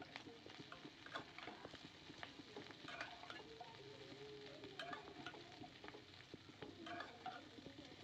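Metal spatula scraping and clicking against a wok as green chillies and pork are stir-fried, with a light sizzle of the food frying underneath. The clicks come irregularly, several a second.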